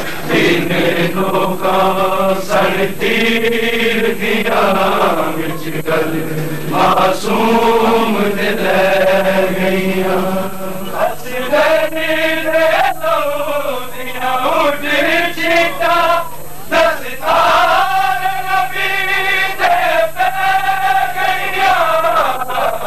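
Male voices chanting a Punjabi noha, a Shia mourning lament, in long held melodic phrases that rise and fall.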